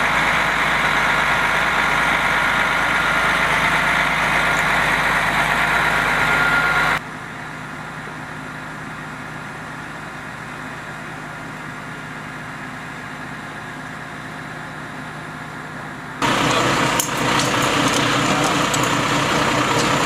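Charter coach buses' diesel engines idling steadily with a continuous hum. The level drops sharply about seven seconds in and comes back just as sharply about sixteen seconds in, with a few light clicks after it returns.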